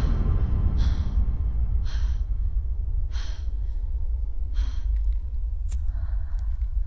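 A woman breathing hard in the dark, five audible gasping breaths about a second apart, over a steady deep rumble; a single sharp click near the end.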